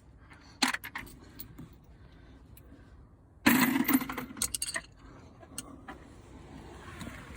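Loose metal tool sockets clinking and rattling as they are handled: a few sharp clicks a little under a second in, then a louder jangling clatter lasting about a second, starting around the middle.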